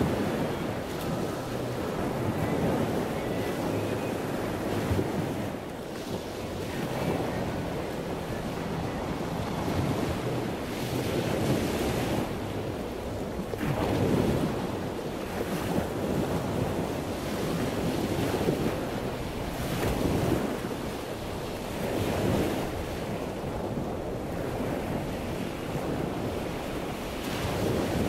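Wind blowing across the camera's microphone: a steady rushing noise, heaviest in the low end, that swells and eases in gusts every second or two.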